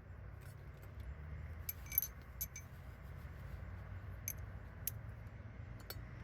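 Scattered light metallic clinks and taps of a hand tool against a bolt on a transmission, with a cluster of ringing clinks about two seconds in, over a low steady hum.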